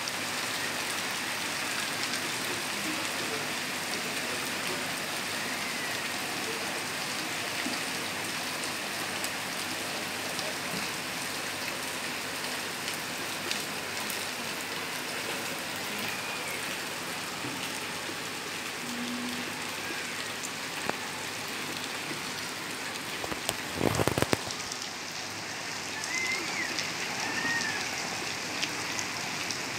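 Steady rain falling, an even hiss with scattered drop ticks. A brief louder burst comes about three-quarters of the way through.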